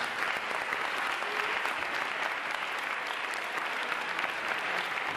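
Audience applauding steadily after a choir performance, a dense even patter of many hands clapping.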